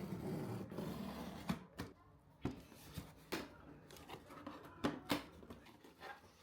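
Objects being handled: a rustle in the first second and a half, then a series of sharp clicks and knocks.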